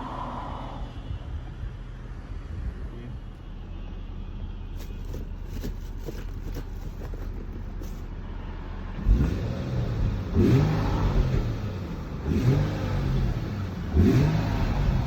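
Nissan VQ35HR 3.5-litre V6 idling steadily, then revved four times from about nine seconds in, each blip rising and falling back to idle.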